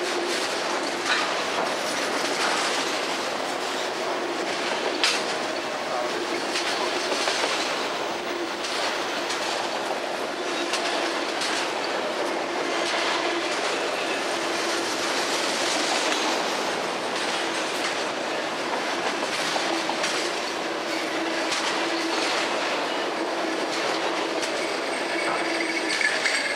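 Freight train of autorack cars rolling past across a bridge: a steady rumble with repeated clacking of wheels over rail joints.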